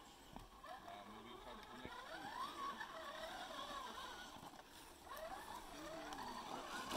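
Electric motors and gear drives of radio-controlled scale crawler trucks whining, the pitch rising and falling as the throttle is worked while they crawl over roots, in two spells with a short lull in between.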